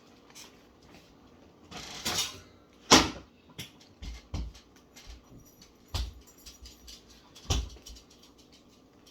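Feet stomping hard on the floor several times, trying to kill an earwig that crawled out of the trash can. A short scraping rustle comes just before the first and loudest stomp, about three seconds in.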